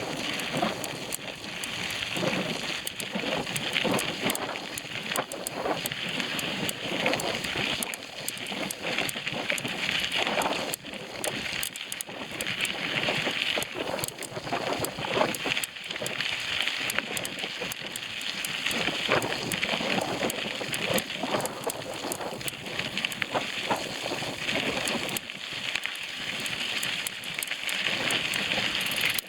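Bicycle tyres rolling over a rough dirt trail: a continuous crackling rustle scattered with small clicks and knocks from the ground and the bike.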